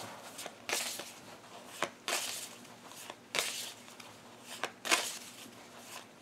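A tarot deck being shuffled by hand: about four rustling shuffles roughly a second and a half apart, each opening with a sharp snap of the cards.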